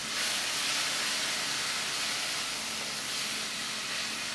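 Onions and tomatoes frying in hot oil in a pot, sizzling with a steady hiss that swells slightly just after the start.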